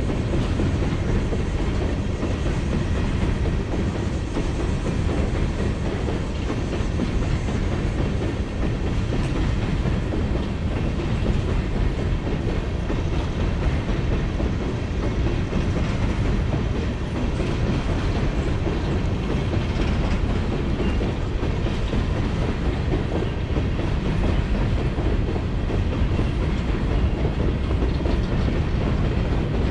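Freight train of open-top coal hopper cars rolling past, steel wheels running steadily on the rails with a low, even noise.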